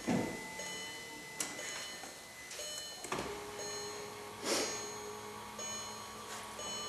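Ticking and chiming from a VW Passat's dashboard warning chimes with the key on and the door open, broken by a few sharp knocks as the car is handled. A low steady hum starts about three seconds in.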